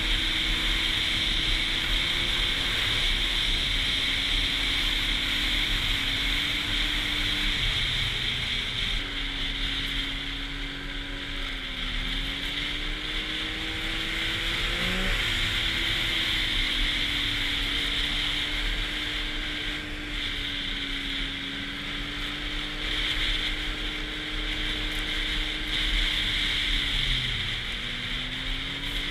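Arctic Cat snowmobile engine running at a steady cruise, its pitch drifting gently up and down with small throttle changes, with a brief rise in revs about halfway through.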